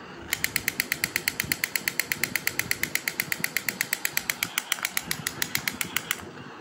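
Battery-operated crawling soldier toy's electronic machine-gun sound effect: a fast rattle of shots, about ten a second, thin and tinny from its small speaker. It starts just after the beginning and cuts off suddenly about six seconds in, over the low whirr of the toy crawling.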